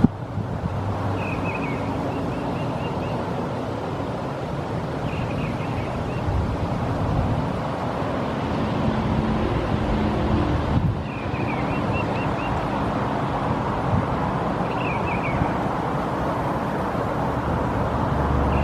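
Steady outdoor rushing noise, like wind on the microphone or distant traffic, with short runs of high chirping notes every few seconds, probably small birds.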